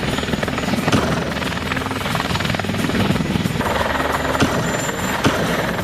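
Helicopter sound effect: a fast, steady rotor chop.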